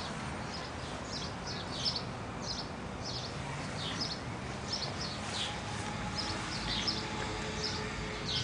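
Small birds chirping over and over: short, high, falling chirps about twice a second, over a low steady background hum.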